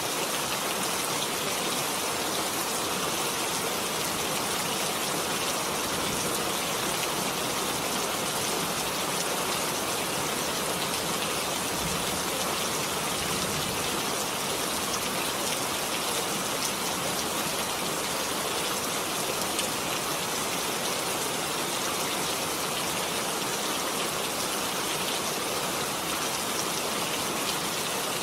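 Heavy rain falling steadily, a dense even hiss of drops with fine pattering on surfaces that keeps the same loudness throughout.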